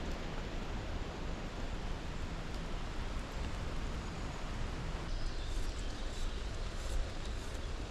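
Steady outdoor ambience: an even rush of wind noise with a low rumble, and a few faint high chirps in the second half.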